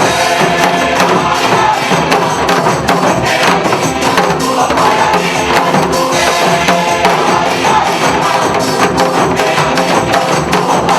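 Upbeat recorded music with a steady beat, with a group of janggu drums struck in time with it.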